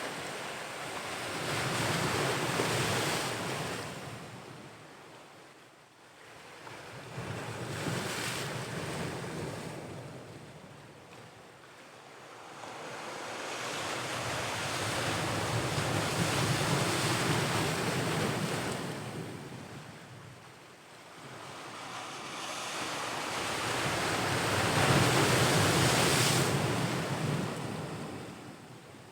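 Ocean waves breaking and washing ashore, the surf swelling and falling away in four slow surges, each several seconds long.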